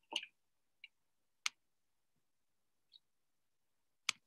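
Faint, sparse clicks at a computer, most likely mouse clicks, heard through a Zoom meeting's audio: a sharp click near the start, another about a second and a half in, and one near the end, with two fainter ticks between.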